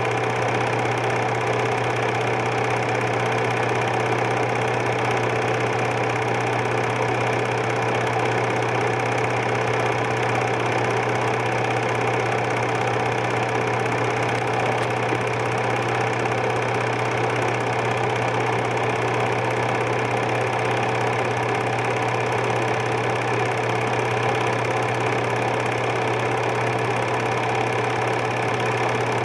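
Super 8 film projector running steadily: a constant mechanical hum and whir with no change in pitch or level.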